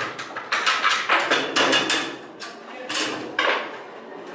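AK-74 assault rifle being field-stripped at speed: quick, irregular clacks and clicks of steel parts being worked loose and set down on a table, with a couple of brief lulls.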